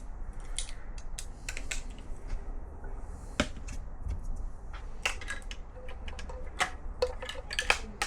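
Metal sockets and hand tools being rummaged through: irregular clinks and clicks, a few ringing briefly.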